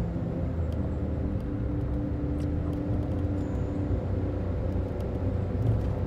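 Car driving along a road: a steady low rumble of engine and tyre noise, with a steady held music tone underneath.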